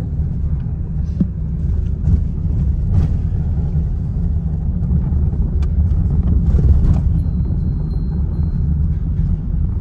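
Steady low rumble of a moving car, with engine and road noise heard from inside.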